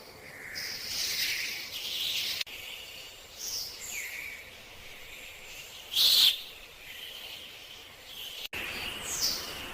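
Birds calling in short chirps and whistles, some gliding down in pitch, with one loud call about six seconds in. The sound breaks off abruptly twice.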